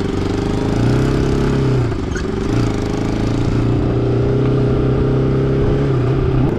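Motorcycle engine running while riding, at a steady pitch with road and wind noise, dipping briefly about two seconds in as the throttle eases, then settling back; the pitch starts to climb right at the end.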